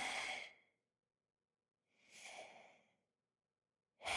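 A man's creepy heavy breathing into a phone, in slow drawn-out breaths: one ending about half a second in, a fainter short one around two seconds in, and another beginning near the end.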